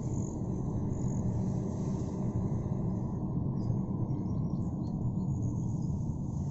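Steady low rumble of a car driving along a paved road, engine and tyre noise, with a few faint high chirps about halfway through.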